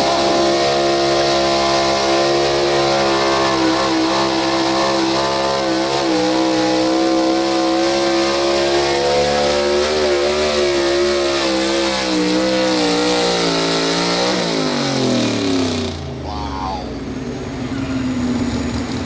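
Pro Stock 4x4 pulling truck's engine at full throttle, holding high revs steadily, then wavering in pitch. About fourteen seconds in it winds down as the throttle comes off. It cuts off suddenly soon after, leaving a quieter background.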